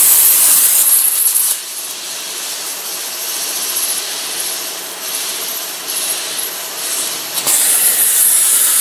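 Multiplaz 3500 water-vapour plasma torch hissing steadily as it strikes an arc on steel plate to fusion-tack a workpiece. The hiss is loud, drops noticeably quieter about a second and a half in, and comes back up to full strength near the end.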